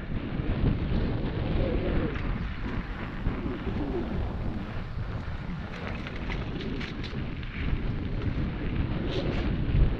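Mountain bike rolling along a dirt trail: wind rumbling on the microphone over tyre noise, with a few short rattling clatters of the bike over bumps.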